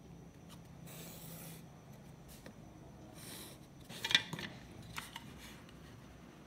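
A pen scratching along the edge of a plastic Roll-n-Draw rolling ruler on paper, drawing two short lines. About four seconds in, the ruler is shifted and rolled to a new angle with a quick clatter of plastic clicks, the loudest sound, followed by a couple more clicks about a second later.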